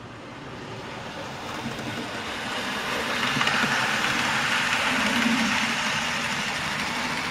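00 gauge model train running along the layout track: the locomotive's small electric motor and the wheels on the rails make a steady whirring rumble. It grows louder over the first few seconds as the train comes past close by, then cuts off abruptly.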